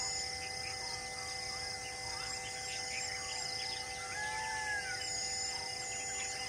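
Birds chirping over a steady droning background. Short high calls repeat throughout, and a couple of slower whistled notes come through about halfway.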